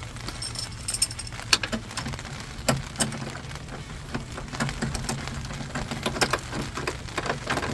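Irregular metallic clicks and taps of a nut driver and nut at the towing mirror's mounting stud in the door frame, as the nut is started and run onto the stud. A steady low hum runs underneath.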